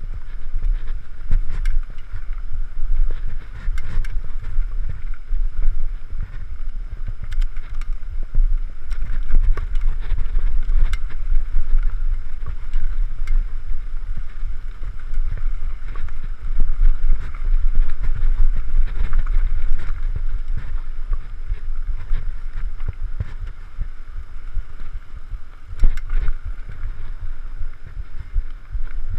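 Mountain bike riding over a dirt trail: a steady low rumble with wind on the microphone, and frequent sharp clicks and rattles from the bike jolting over bumps.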